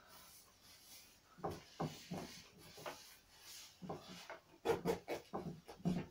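Neoprene overshoe being stretched and worked over a cycling shoe by hand: irregular rubbing and rustling with a few short soft knocks.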